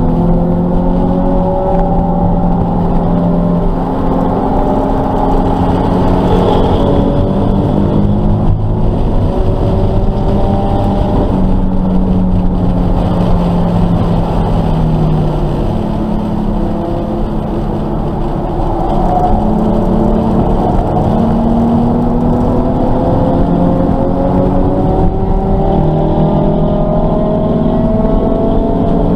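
Nissan 370Z's 3.7-litre V6, heard from inside the cabin, running hard on track. Its pitch climbs slowly through long pulls and drops back at gear changes. It eases off for a couple of seconds past the middle, then pulls again.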